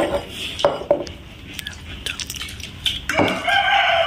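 Light clinks of stainless steel plates, bowls and a serving spoon during a meal, then a rooster crowing, one long call that starts about three seconds in.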